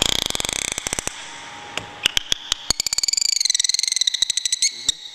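Dolphin calling in air: a fast train of clicks that slows during the first second, then scattered single clicks, then a wavering whistle over a rapid run of clicks that stops shortly before the end.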